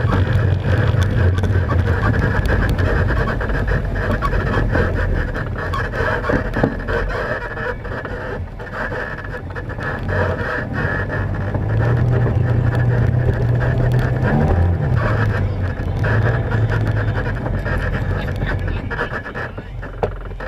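ATV engine running hard under load on a rough dirt trail, with a brief rev about fourteen seconds in. The engine eases off and the sound falls away over the last few seconds as the machine slows.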